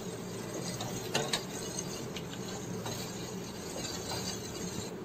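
Metal ladle stirring hibiscus petals and water in a stainless steel pot on the stove, knocking lightly against the pot twice about a second in and a few fainter times later, over a steady hiss.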